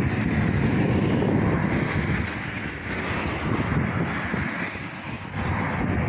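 Wind buffeting the microphone: a low, uneven rumble that swells and eases, easing briefly near the end.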